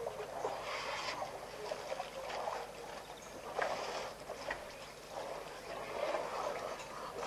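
Water sloshing and splashing softly in irregular surges as elephants and a calf drink with their trunks at the edge of a waterhole.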